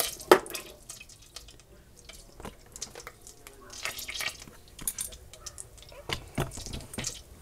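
A sharp knock about a third of a second in. Then melted butter bubbling in a stainless saucepan on the burner, with scattered small pops and crackles.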